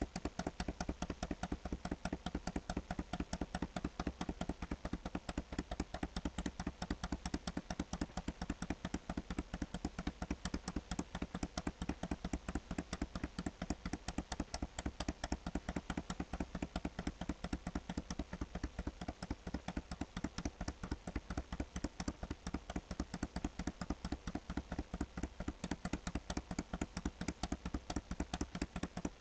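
Rapid, even clicking or tapping, several sharp clicks a second without a break.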